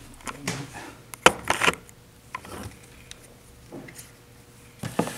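Handling noise: a few sharp clicks and knocks with brief rustling scrapes as the camera and objects are moved about on a wooden desk, the loudest click a little over a second in.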